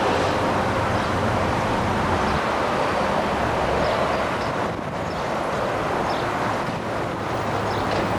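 Steady rush of street traffic.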